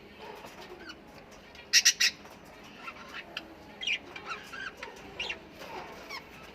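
Australian parrots calling: a quick run of three loud, harsh squawks about two seconds in, with scattered shorter chirps and calls throughout.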